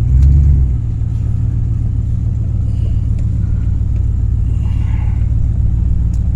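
1978 Ford Mustang under way on the road after a carburetor repair: a steady low engine and road rumble, with a brief louder swell in the first second.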